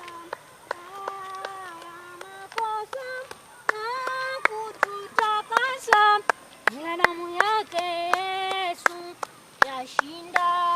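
A high female or child's voice singing a melody without accompaniment, with sharp taps or claps keeping a rhythm at about two a second.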